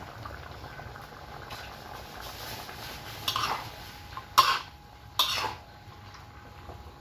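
Metal spatula scraping and knocking against a wok during stir-frying: three short, loud scrapes in the middle, over a steady low background.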